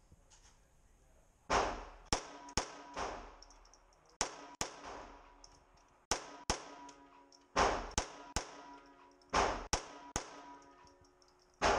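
Ruger Mark III 22/45 Target pistol firing .22 LR rounds in an unhurried string of sharp cracks, some half a second apart, others a second or more apart, each with a short echoing tail.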